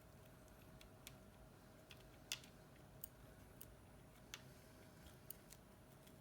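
Near silence with scattered small sharp clicks and ticks of tools and phone parts being handled on a workbench, the loudest about two seconds in, over a faint steady hum.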